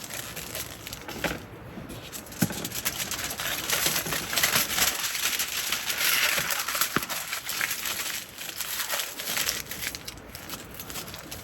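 Crinkling and rustling with many scattered sharp clicks, louder through the middle.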